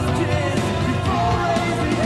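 Gothic rock band recording, with drums, electric guitars and a wavering sung vocal line over a steady, full mix.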